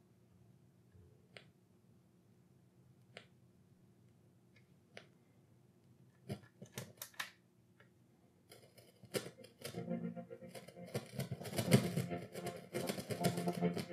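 Technics SU-8055 amplifier on its first test after an STK-0050 power pack replacement: faint hum and scattered clicks as the front-panel controls are worked. From about eight seconds in, crackly, scratchy, broken-up bursts of the test music come through the speakers, a sign the amp is only partly passing sound.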